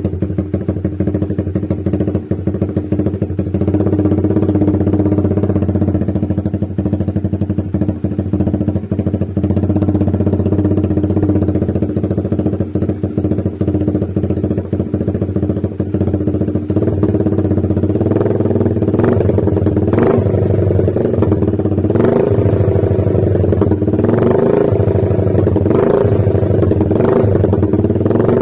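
Honda Sonic 150R's single-cylinder four-stroke engine running through a DYN aftermarket slip-on silencer, fairly loud and booming, idling steadily at first. In the second half it is revved in a series of short throttle blips, each rise and fall in pitch lasting about a second, at no more than about half throttle.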